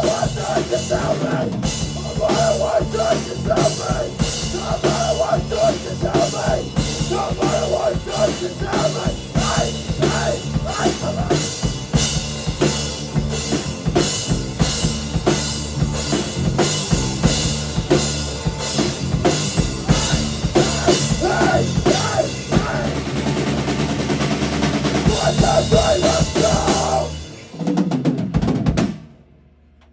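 Live rock band playing hard, with a pounding drum kit, electric guitar and bass guitar. Near the end the band stops, plays one last short hit, and the music cuts off.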